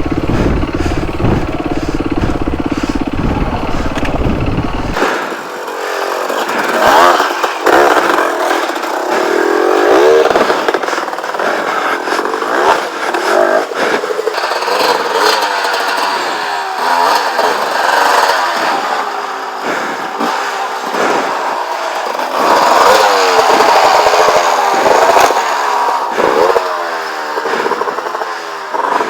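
Off-road motorcycle engines revving hard and repeatedly, the pitch rising and falling over and over as the bikes are worked up a steep, loose hill climb. For the first five seconds a deep low rumble dominates, then it cuts off abruptly.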